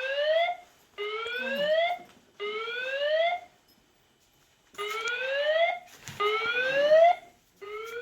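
Building emergency evacuation alarm sounding a rising whoop tone in sets of three: three sweeps of about a second each, a pause of about a second, then three more.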